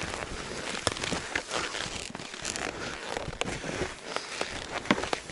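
Hunting skis crunching and swishing over snow in steady strides, with clothing rustling and a few sharp clicks scattered through.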